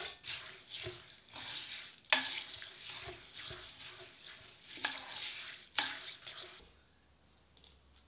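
Black sunflower seeds rustling and rattling in an enamel pot as a wooden spoon stirs them, with a few sharper scrapes or knocks among them. The stirring stops a little before the end.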